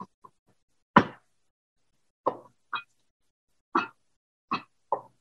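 Chef's knife chopping fresh basil, cilantro, mint and scallion on a plastic cutting board: about eight slow, unevenly spaced chops, the loudest about a second in.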